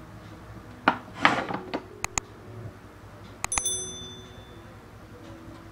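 Small parts and a tool handled against a sheet-metal amplifier chassis: rustling and a few sharp clicks, then one bright metallic clink with a brief high ring about halfway through.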